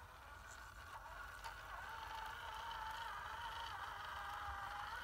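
Electric motor and gear drive of an RC scale crawler truck whining steadily as it creeps along a log. The pitch wavers slightly with the throttle, and the sound grows gradually louder.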